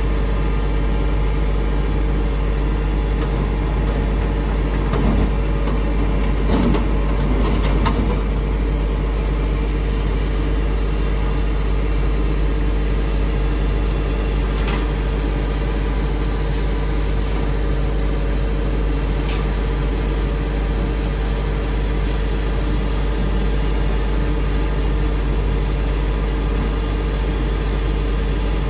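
Hitachi Zaxis 210F excavator's diesel engine running steadily as it works a load into a dump truck, with a few louder knocks about five to eight seconds in.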